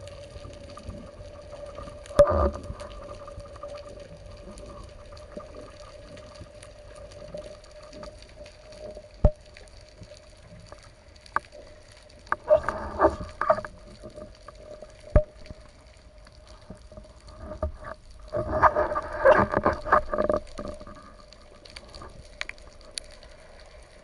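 Underwater sound heard through a diving camera housing on a breath-hold spearfishing descent: a steady hum with a few sharp clicks, and two spells of dense crackling, one around the middle and a longer one later.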